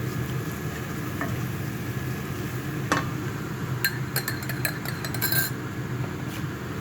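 A spoon stirring tomato paste into boiling water in a dish, clinking against its sides: one sharp clink about three seconds in, then a quick run of clinks for about a second and a half, over a steady low hum.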